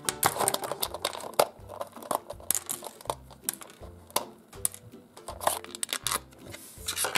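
Crinkling and crackling of a clear plastic sleeve and a cracked plastic Hatchimals Pixies eggshell being handled as a small doll is pulled free: a run of short, sharp rustles. Faint background music runs underneath.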